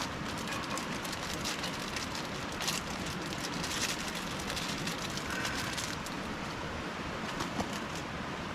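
Onions frying in a pan, a steady sizzle with scattered small pops.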